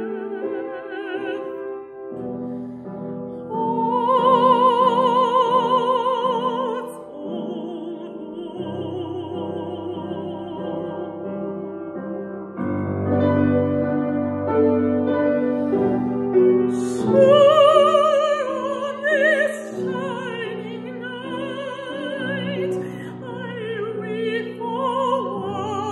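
A woman singing in classical operatic style with wide vibrato, over a piano accompaniment. She rises to loud held high notes about four seconds in and again past the middle.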